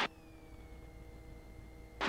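Robinson R22 helicopter heard faintly, a low steady hum with a few faint steady tones and a high whine that drops in pitch over about a second and then holds steady. This fits the engine being throttled back on entry into a practice autorotation.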